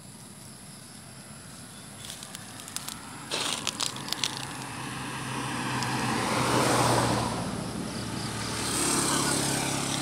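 A motor vehicle passing on a nearby road: engine hum and road noise swell to a peak about seven seconds in, ease off, and swell again near the end. A few sharp clicks come about three to four seconds in.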